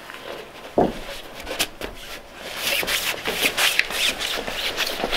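A scuffle on a wooden deck: a thump about a second in, then clothing rustling and scraping as a limp body is grabbed and hauled up.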